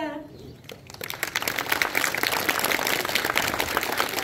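Audience applauding: many people clapping, starting about a second in and holding steady.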